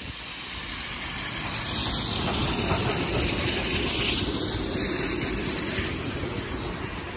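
Two P36 steam locomotives running past close by at speed: a dense rush of wheel and running-gear noise with a hiss of steam, swelling to its loudest about a third of the way in and easing off toward the end.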